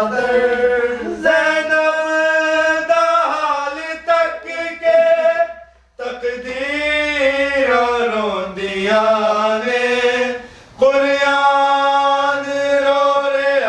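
Unaccompanied male voice singing a Punjabi noha, a Shia mourning lament, in long drawn-out notes that waver in pitch. The singing breaks briefly for breath about six seconds in and again near eleven seconds.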